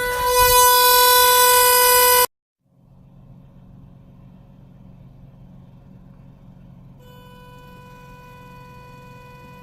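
Car horn blaring one long steady tone because it is wired into the brake lights, so it sounds whenever the brakes are applied; it cuts off abruptly about two seconds in. A low steady rumble follows, and about seven seconds in the horn sounds again, fainter and steady.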